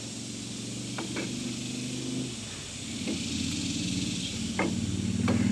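A motor vehicle engine running steadily, getting louder about three seconds in, with a few sharp metallic clicks as a brake caliper is worked onto its rotor.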